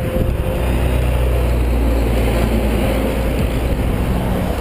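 A semi truck passing close by on the highway: a low diesel engine drone over tyre and road noise, strongest in the first three seconds and then easing.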